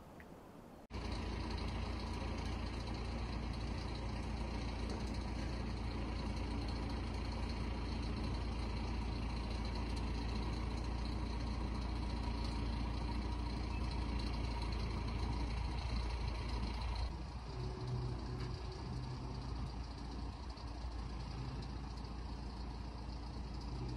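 A heavy vehicle's engine running steadily, from the tractor that moves the boat's launch trailer. It starts abruptly about a second in and shifts to a slightly different, lower sound about 17 seconds in.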